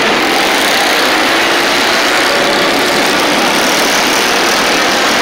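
Several flat-track racing motorcycles running hard around the oval inside an arena hall, their engines blending into one loud, steady drone.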